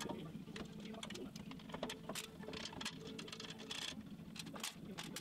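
Faint, irregular clicks and taps of bolts and hand tools on metal as the front rail is bolted onto a table saw, over a steady low hum.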